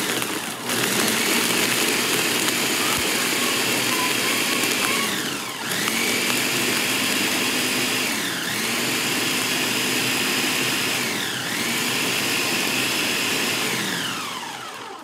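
Countertop blender running at high speed, crushing ice and fruit with milk into a smoothie. Its motor pitch dips and recovers three times, then it winds down near the end.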